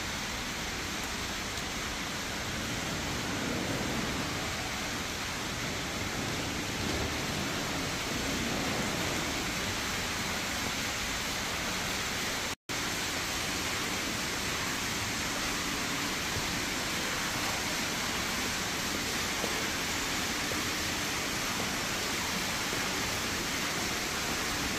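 Steady rushing hiss of falling water, cut off for a split second about halfway through.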